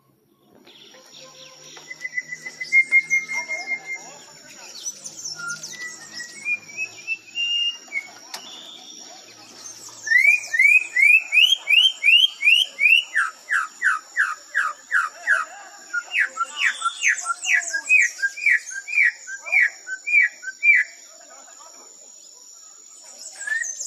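Campo troupial (concriz) singing: a few whistled phrases, then from about halfway long runs of loud, clear repeated whistled notes, about three a second, that stop a few seconds before the end.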